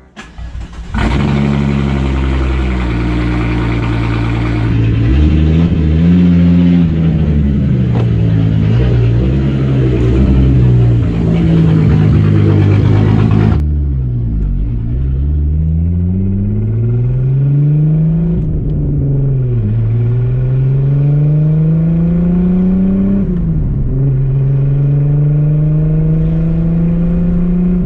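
Volkswagen Corrado SLC's VR6 engine under way, accelerating through the gears. The engine note climbs, drops sharply at each upshift, twice in the second half, then holds a steady pitch.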